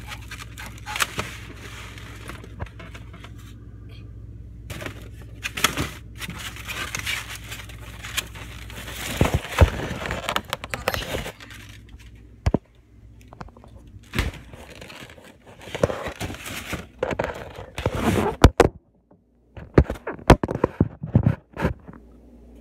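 Handling noise from a phone camera and plush toys being carried and moved about: scattered scraping, rustling and clicks in bursts. A steady low hum runs under the first half and stops about halfway through.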